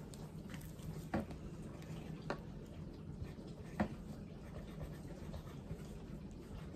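Writing with a felt-tip marker on a plastic zip-top bag, with faint scratching and handling of the bag, and three short clicks.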